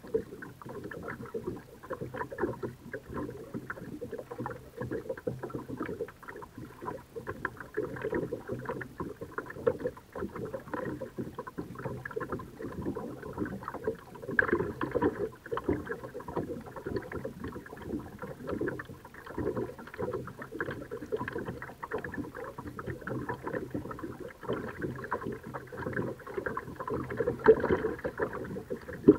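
Kayak paddling: irregular water splashing and trickling from paddle strokes on a pond.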